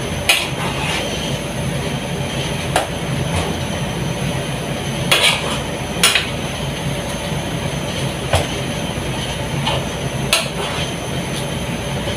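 A steady machine hum runs throughout, broken by about seven short, sharp clinks and knocks of kitchen utensils against cookware at irregular spacing.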